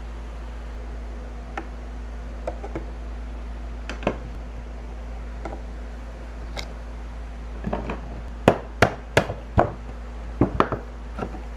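Sharp, irregular knocks and taps on wood from a vintage wooden cabinet being handled and worked on before it is taken apart: a few scattered ones at first, then a quick run of louder knocks in the second half. A steady low hum runs underneath.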